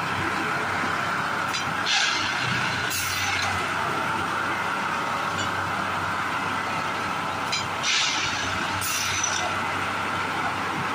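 Railway track-tamping machine running: a steady engine and hydraulic drone with a constant whine. Short hissing bursts come twice, about 2 and 8 seconds in.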